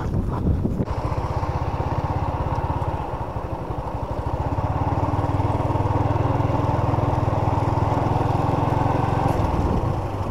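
Small motorcycle engine running as the bike rides along, with a fast, even firing beat; it comes in abruptly about a second in and gets louder about halfway.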